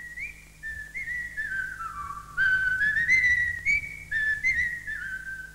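A person whistling a slow, wandering tune, the notes sliding and wavering into one another, louder in the middle.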